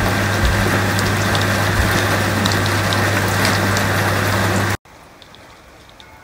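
Torrential rain falling steadily, with sharp ticks of individual drops and a steady low hum beneath it. About five seconds in it cuts off abruptly to much fainter, lighter rain.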